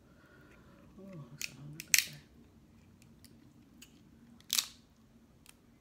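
Cooked shellfish shell being pulled apart by hand, cracking and snapping. There are a few sharp cracks, the loudest about two seconds in and another a little after four seconds, with small clicks between them.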